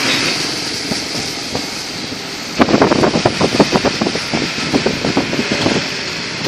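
Car driving through rain-flooded streets, heard from inside the cabin: a steady rush of tyre and water noise. A little under halfway in it turns louder and choppy, with a rapid string of sharp splashes.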